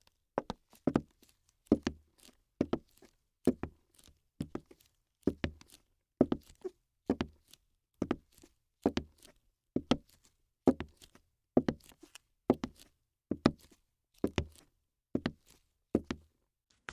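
A steady series of thuds, a little more than one a second, each with a quick double strike.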